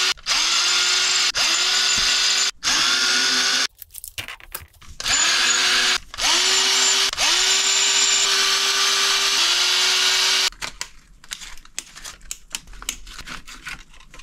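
Black+Decker cordless electric screwdriver backing screws out of an RC truck's chassis: about seven short runs of motor whine, each rising in pitch as it spins up and then holding steady, with brief stops between. After about ten seconds it stops and gives way to small clicks and rattles of parts being handled.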